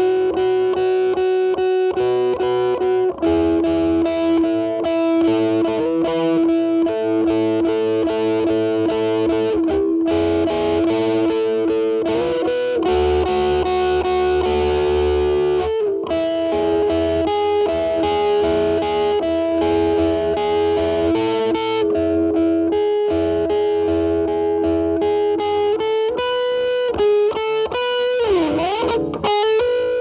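Gibson SG electric guitar with humbuckers played through a metal distortion pedal into a Marshall Valvestate amp's clean channel, with the guitar's volume rolled back so the distortion cleans up. Sustained notes and double stops with bends, and a deep dip in pitch and back near the end.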